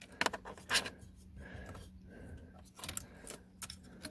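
Small plastic clicks and rattles of an add-a-fuse and its wires being handled and pushed into a car's fuse box, a few separate clicks spread over several seconds.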